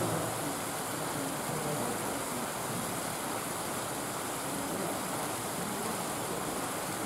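Steady rushing background noise at an even level, with faint low murmurs in it.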